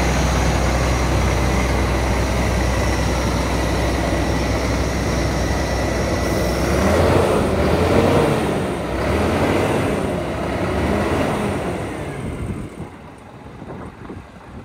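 Scania P420 truck's diesel engine idling steadily, then revved twice in the middle, the pitch rising and falling with each rev. The engine sound drops away sharply near the end.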